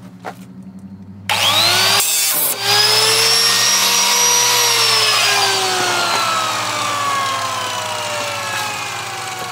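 A handheld power tool's motor starts suddenly with a whine that rises in pitch for a couple of seconds, then slowly falls as it winds down. A brief harsh rasp comes about two seconds in.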